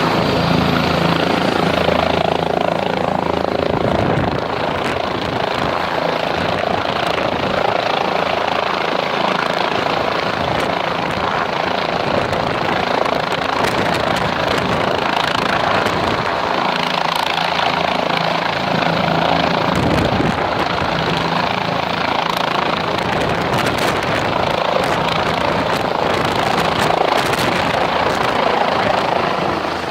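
Medical helicopter's turbine engine and rotor running, a loud steady whooshing rotor noise with an engine hum that is strongest in the first few seconds.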